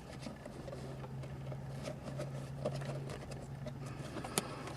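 Small hinge parts being handled and pushed into place, with light clicks and one sharp click about four seconds in, over a low steady hum.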